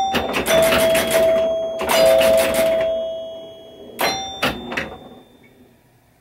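Rebuilt pinball chime box with Gottlieb chime bars ringing: struck chimes ring out clearly among sharp mechanical clacks, with fresh strikes about half a second in, about two seconds in and again around four seconds, then dying away.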